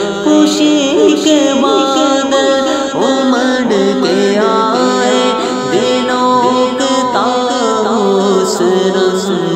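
Male voices singing a wordless, melismatic melody over a steady held vocal drone, an interlude between verses of a naat recitation.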